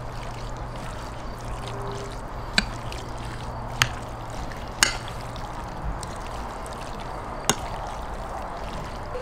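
Metal spoon stirring a wet chopped vegetable salad in a white ceramic bowl, with four sharp clinks of the spoon against the bowl.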